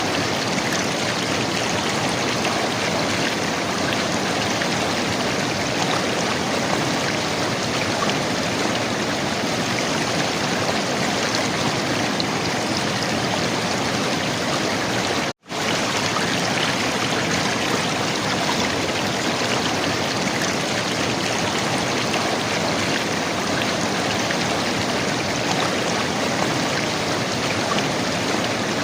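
River water flowing and gurgling, a steady even rush. It breaks off to silence for an instant about halfway through.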